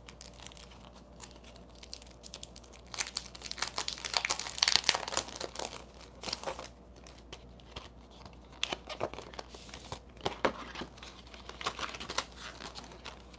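Crinkly packaging being unwrapped and handled as a set of die-cut border dies is taken out of it: irregular crackling rustles, busiest from about three seconds in, then scattered and sparser.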